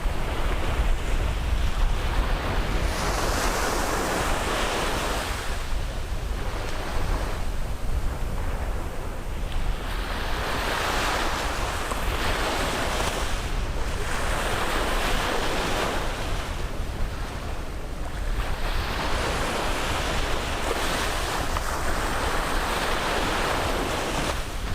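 Caribbean surf washing onto a beach: the hiss of the breaking waves swells and fades about every four seconds. Under it runs a steady low rumble of wind on the microphone.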